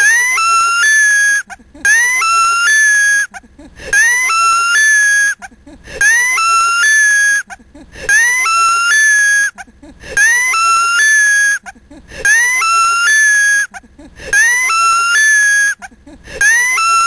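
A short, high-pitched edited sound clip looped over and over: the same phrase, gliding and stepping up in pitch, repeats identically about every two seconds, nine times.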